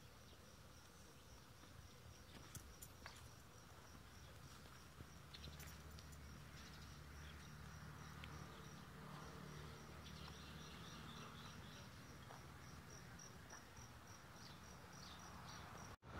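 Faint outdoor quiet with an insect chirping, a short high chirp repeated steadily a few times a second.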